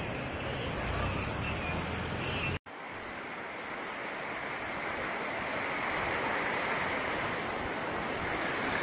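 Rushing floodwater: a steady noisy wash of fast-flowing muddy water. It breaks off for a moment about two and a half seconds in, then carries on with more hiss.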